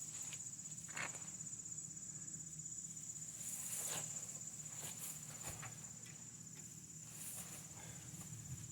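A steady, high-pitched insect trill, faint, with a few soft clicks and a low hum underneath.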